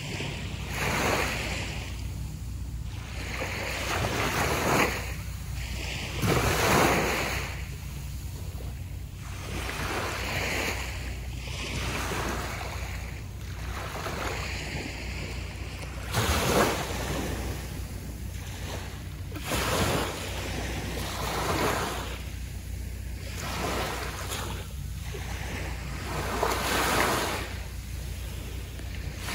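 Small sea waves breaking and washing up on a sandy beach, one wash every few seconds, some louder than others, over a steady low rumble of wind on the microphone.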